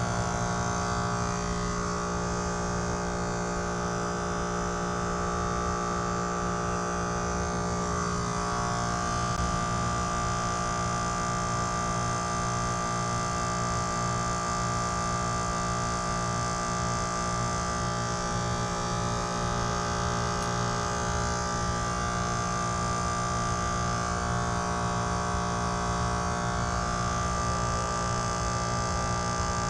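Trane XR14 heat pump outdoor unit running in defrost, its compressor giving a steady hum with a higher whining tone over it.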